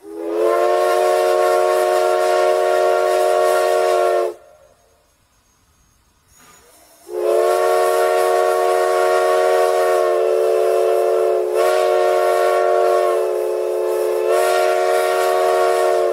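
Steam locomotive whistle sounding a chord of several notes at once. It gives a long blast of about four seconds, then after a short pause a longer blast of about nine seconds.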